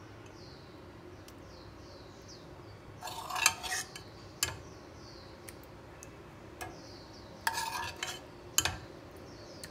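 Steel spoon scraping and clinking against a Futura pan and a stainless steel plate while curry is served, in two bouts about three and seven and a half seconds in, each ending in a sharp clink.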